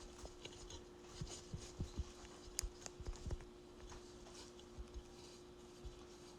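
Faint scattered light taps and rubbing, like small objects being handled, over a steady low hum.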